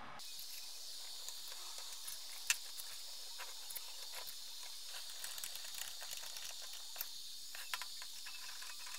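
Restored Olympia 3½-inch engineer's swivel vice being worked by hand: scattered light metallic clicks and taps from the sliding jaw and the loose tommy-bar handle, the sharpest about two and a half seconds in, over a steady faint hiss.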